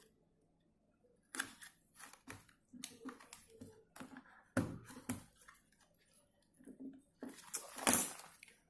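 Product packaging being handled and worked at by hand to get it open: irregular clicks and short crackles, with a longer, louder crinkling stretch near the end.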